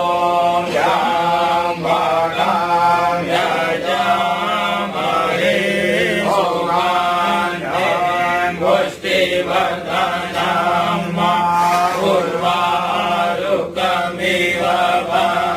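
Hindu devotional chant: a sung voice moving in melodic phrases over a steady low drone.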